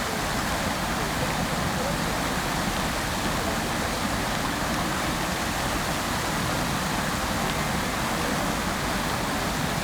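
Fountain water splashing steadily into its basin: a dense, even rush of falling water that does not let up.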